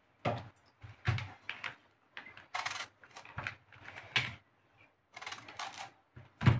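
Irregular light knocks and clicks of a kitchen knife cutting the stem ends off long purple brinjals on a plastic-covered table, and of the brinjals being knocked into line by hand.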